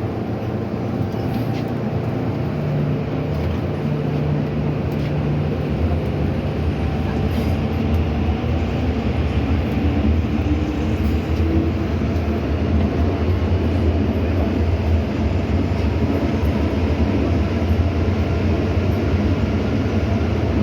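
MTR M-Train electric multiple unit running through the Island Line tunnel, heard from inside the carriage: a steady low rumble and hum that grows slightly louder, with a faint rising tone about halfway through.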